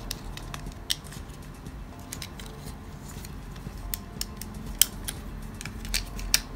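Light, scattered plastic clicks and taps as small parts of a Tamiya Mini 4WD AR chassis are handled and pressed into place, with a few sharper snaps among them.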